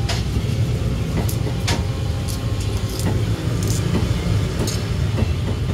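Steady low rumble of street-market background noise, with scattered light clicks and taps.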